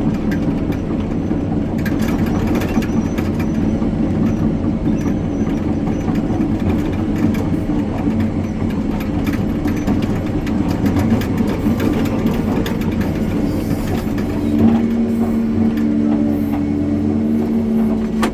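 A heavy engine running steadily, with an even hum settling in about three-quarters of the way through.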